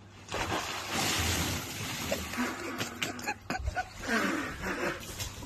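Water splashing and sloshing in an inflatable hot tub as a person climbs in, loudest in the first couple of seconds, with short voiced exclamations later on.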